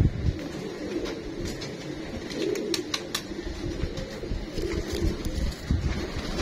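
Domestic pigeons cooing: low cooing phrases repeating every second or two, with a few sharp clicks and some low rumble in between.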